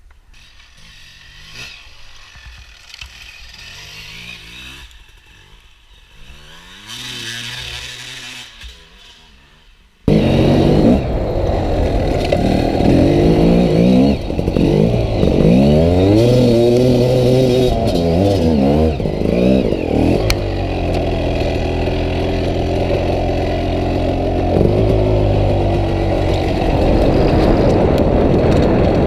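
GasGas EC 300 two-stroke enduro bike engine, quiet for the first ten seconds, then suddenly much louder, revving hard with its pitch rising and falling again and again as the bike climbs a steep hill, with some steadier stretches.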